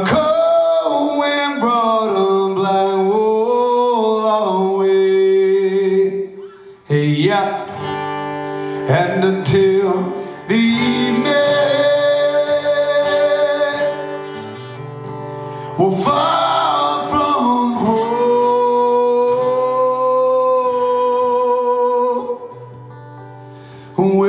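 Live acoustic song: male vocals over an acoustic guitar, with long held notes and short pauses between phrases.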